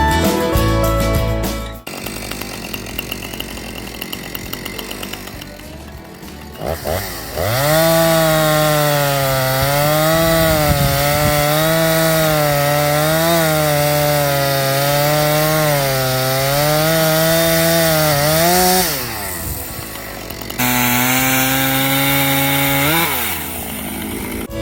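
Two-stroke chainsaw running at high revs, its pitch dipping and rising as it cuts under load for about twelve seconds. It drops back, then revs again briefly and rises near the end. Background music plays at the start.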